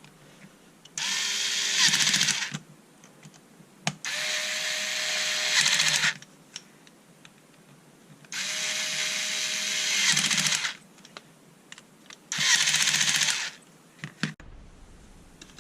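Bosch Ixo cordless screwdriver's motor and geared drive running in four separate bursts of about two seconds each, with a steady whine. The screwdriver is newly reassembled with an extra set of gears fitted.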